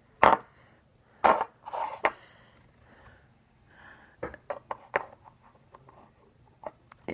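Small metal and plastic parts of a gas-blowback airsoft pistol's internal assembly clicking and clinking as they are handled and fitted back together: a few sharp taps in the first two seconds, then a run of lighter clicks about four to five seconds in.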